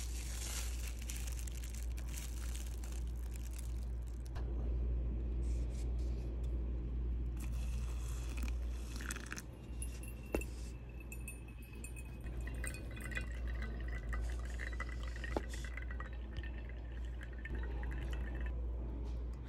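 Water being poured onto ground coffee in a single-use paper drip filter over a paper cup, trickling and dripping as the coffee brews. A steady low hum runs underneath, with a couple of light clicks.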